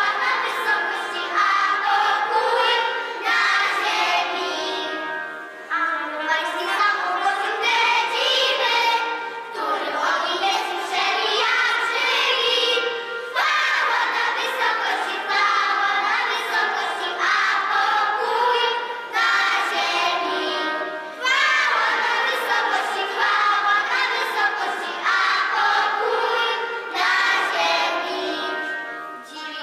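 A children's choir singing a Christmas carol, in phrases a few seconds long.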